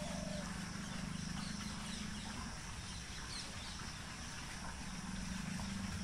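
Steady outdoor background of a low hum and hiss, with a few faint, short bird chirps about three seconds in.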